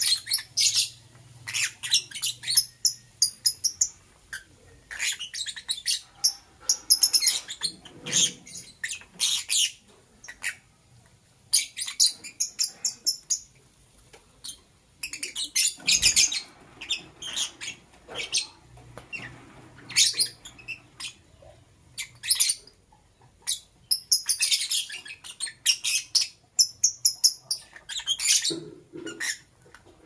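Lovebird chirping: rapid, shrill chirps in bursts of a few seconds, with short pauses between them.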